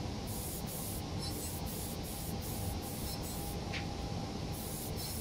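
Aerosol spray paint can hissing in many short, quick bursts, starting and stopping again and again.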